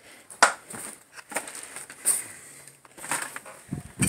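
Footsteps crunching over debris and litter on the floor of a cluttered house: a handful of separate sharp crunches about a second apart.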